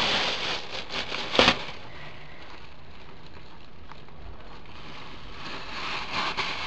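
Thin plastic bag rustling and crinkling as it is pulled off a pot of soil, ending in a sharp crackle about a second and a half in, then faint rustling near the end.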